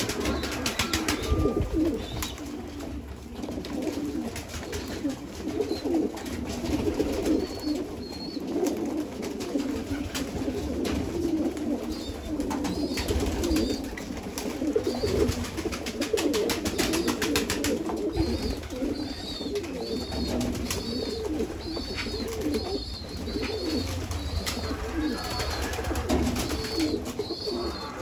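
A flock of domestic pigeons cooing without pause, many voices overlapping, with scattered clicks of pecking and wing flaps as they feed. In the second half, short high chirps repeat about twice a second over the cooing.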